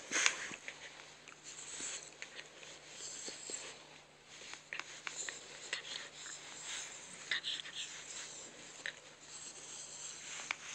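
Bedsheets rustling as a hand prods a Chihuahua lying on its back and the dog squirms, with scattered brief clicks.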